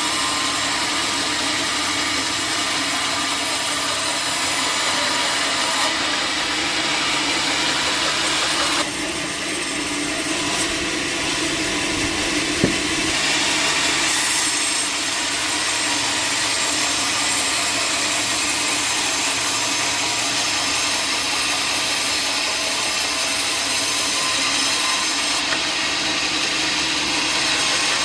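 A sawmill saw cutting steadily through a wooden log, a continuous rasping run over a machine hum, dipping slightly about a third of the way in.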